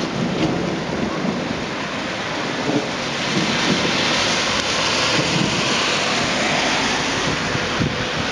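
Steady rushing noise of a thunderstorm's rain and wind, with gusts buffeting the microphone low down; it cuts off suddenly at the end.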